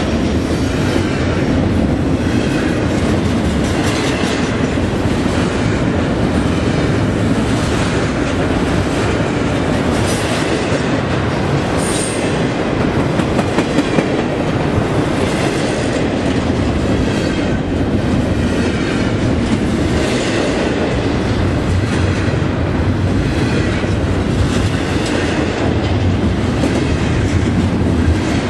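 Union Pacific double-stack intermodal freight train rolling past at speed: a steady, loud rumble of steel wheels on rail that swells about every two seconds as the cars go by. A brief high-pitched wheel squeal comes near the middle.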